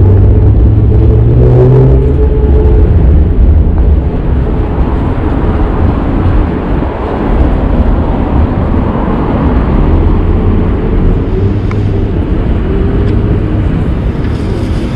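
Low, steady rumble of city street traffic. A vehicle's engine note rises briefly in the first couple of seconds.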